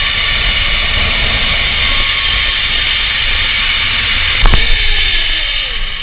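Zipline trolley pulleys running fast along the steel cable, a loud steady high whine over wind rushing on the microphone. About four and a half seconds in there is a knock, and a lower tone falls in pitch as the ride nears its end.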